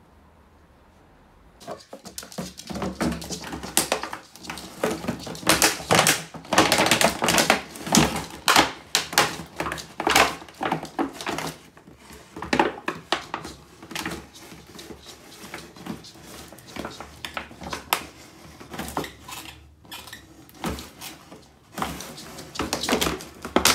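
An empty plastic water bottle crackling and clattering on a hard floor as a West Highland White Terrier paws and noses it about. The sound is a fast, irregular run of sharp clicks and crinkles that starts about two seconds in.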